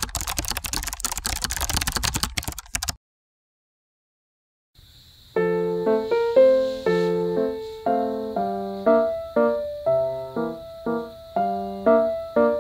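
Gentle solo piano background music, single notes and chords struck about twice a second and left to ring, starting about five seconds in. Before it, a burst of rapid clicking noise lasts about three seconds, then stops suddenly, followed by a short silence.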